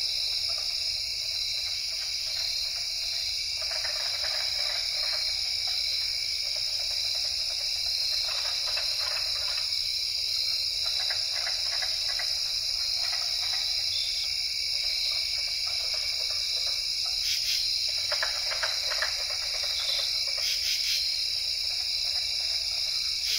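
A steady high-pitched drone or trill, with patches of soft crackling underneath and a few clicks near the end.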